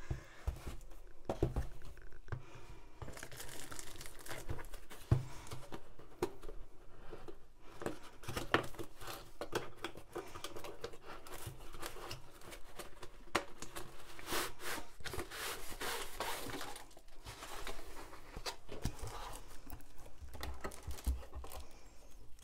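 Plastic shrink-wrap crinkling and tearing as it is pulled off a cardboard kit box, with the cardboard end flap being opened and many small rustles and clicks of handling.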